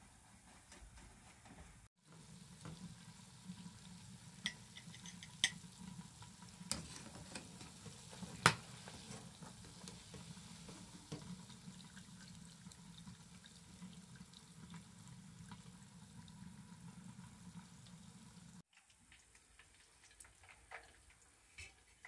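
Chunks of potato deep-frying in a pot of hot oil, bubbling steadily, with a few sharp metallic clicks of a wire skimmer against the pot, the loudest about eight and a half seconds in. The frying sound stops suddenly near the end.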